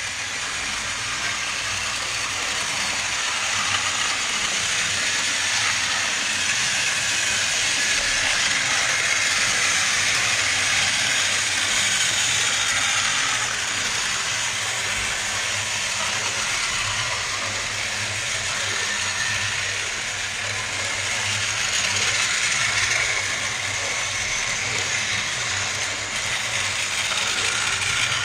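Battery-powered toy train engines running on plastic track: a steady whirring hiss of small motors and wheels that swells and fades slightly.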